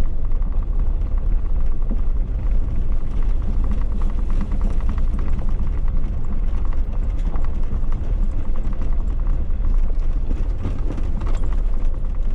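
Jeep driving along a gravel dirt trail: a steady low rumble of engine and tyres, with a dense scatter of small clicks and ticks.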